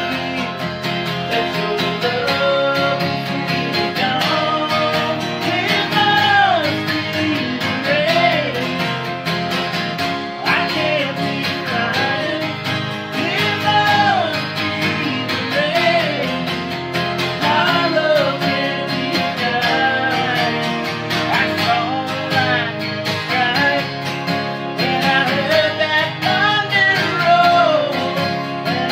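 Two acoustic guitars strummed together with a man singing a slow country song over them.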